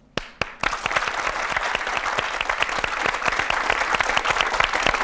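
Studio audience applauding: a few separate claps at first, then steady applause from about half a second in.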